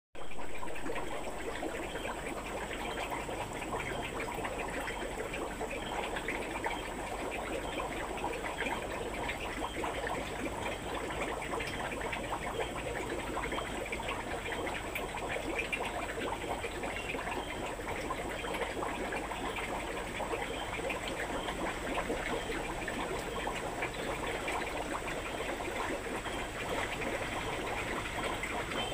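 Water trickling and bubbling steadily, with a faint steady high whine above it.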